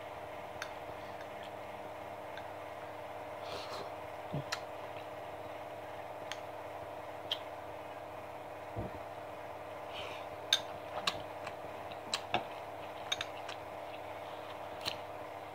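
Metal spoon clicking and scraping against a small ceramic cup in short, scattered clinks, more often in the second half, with eating sounds, over a steady background hum.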